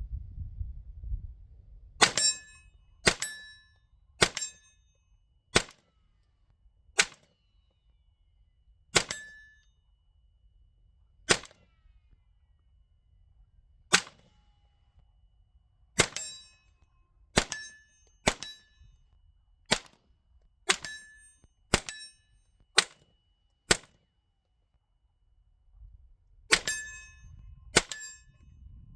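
HK416 .22 LR rifle fired about eighteen times in single shots at an uneven pace, with gaps from under a second to a few seconds. Many shots are followed by a short metallic ring.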